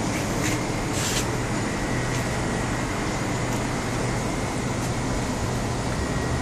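Steady background hum and hiss, with a couple of brief rustles in the first second or so.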